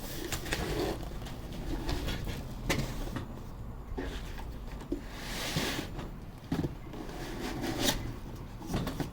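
Cardboard packaging being handled as an inner box is worked out of its outer shipping box: irregular scraping and sliding swishes with a few sharp knocks.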